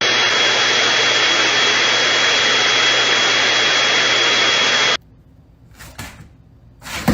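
A small motor running, a loud even rushing sound with a thin steady high whine, cutting off abruptly about five seconds in.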